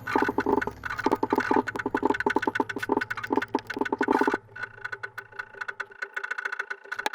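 Background music: a busy, rhythmic run of short pitched notes that switches about four seconds in to a quieter, sparser passage of held tones and light ticking.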